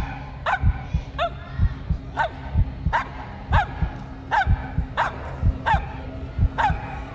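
Small dog barking over and over at an even pace, about two short yelps a second, each dropping in pitch: it is counting up to twenty on cue from a number flashcard.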